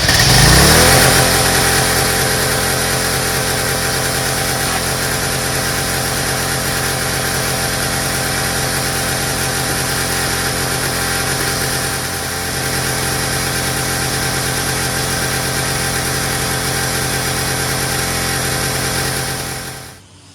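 Gas pressure washer's small engine starting and revving up, then running steadily with a brief dip about twelve seconds in, and shutting down near the end. It runs on a freshly cleaned carburetor, with the spray gun seized so no water is flowing.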